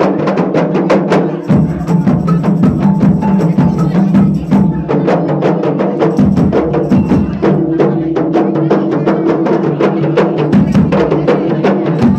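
Music with fast, busy percussion, rapid knocking strikes over a steady low bass note.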